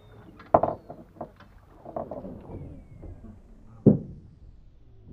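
Knocks and thumps aboard a small fishing boat with water sloshing against the hull. The two loudest thumps come about half a second and four seconds in.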